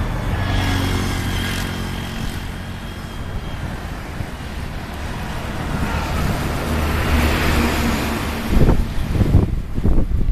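A motor engine running steadily with a low hum, and gusts of wind buffeting the microphone in the last couple of seconds.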